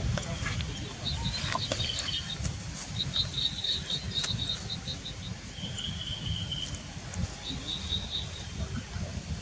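Forest ambience: short trains of rapid, high chirping that come and go several times, over a steady low rumble, with a few sharp clicks in the first two seconds.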